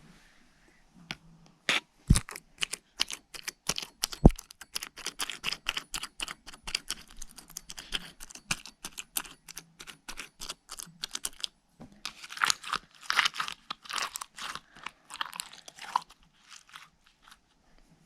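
Slime being squeezed and pressed, giving off fast runs of crackling, popping clicks. They start with a couple of sharp snaps about two seconds in, pause briefly around the middle, then crackle densely again before thinning out near the end.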